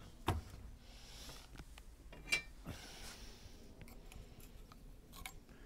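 Brass fitting handled and fitted onto copper pipe: a few light clicks and a metallic click with a short ring, with soft rustling hiss between.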